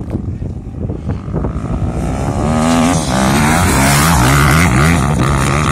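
Motocross dirt bike engine revving as the bike approaches and passes close by, getting loud about three seconds in. The engine note climbs and drops several times as the rider works the throttle.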